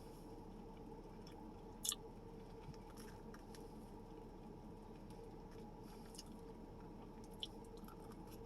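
Faint chewing and wet mouth clicks of someone eating, over a steady low background hum, with one sharper click about two seconds in.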